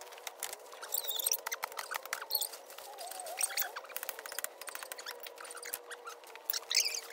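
Dry bamboo leaves and twigs crackling and rustling in quick irregular clicks, with birds chirping a few times, over a faint steady hum.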